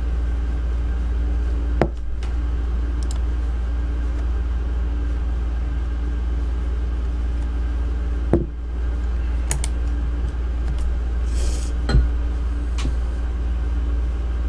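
A steady low electrical hum on the recording, with three short clicks about two, eight and twelve seconds in.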